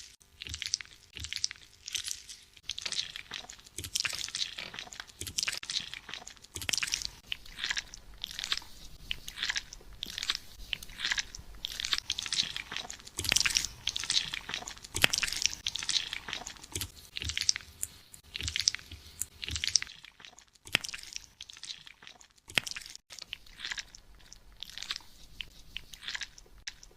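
Fingers scratching and rubbing through hair and scalp close to the microphone during a scalp treatment: many short scratching strokes in quick, irregular succession, thinning out after about twenty seconds.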